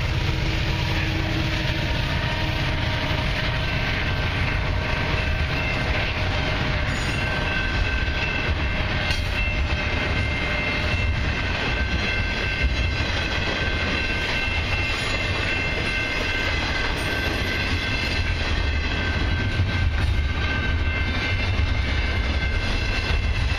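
Long freight train passing close by at a level crossing: the rumble of the trailing locomotive's engine fades in the first couple of seconds, then a steady rolling rumble and clatter of intermodal cars' wheels on the rails.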